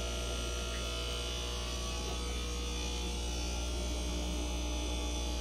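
Steady low electrical hum of aquarium pumps and filters running, unchanging throughout.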